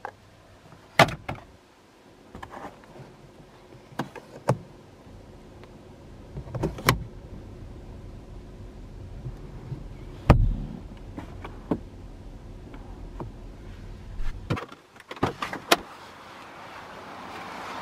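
A string of plastic clicks and knocks from a 2021 Toyota GR Yaris's cabin trim being handled: the glovebox lid, the sun visor and the inner door handle. The loudest knocks come about a second in and about ten seconds in, and near the end a quick run of clicks as the door is unlatched is followed by a rising hiss of outside air.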